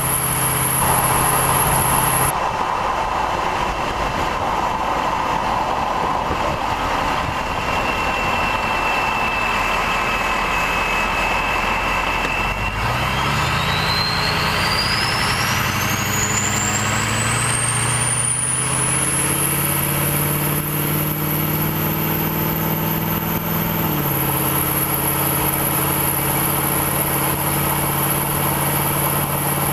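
2003 6.0L Power Stroke V8 turbo-diesel with a straight-piped exhaust running, with a high whistle over the idle that cuts off abruptly about two seconds in. About twelve seconds in the engine is brought up to a raised, held speed and the turbo whistle climbs steadily over several seconds to a high, steady whistle; near the end the engine drops back a little while the whistle holds. This loud whistle is typical of the 2003 turbo, whose turbine wheel has fewer fins.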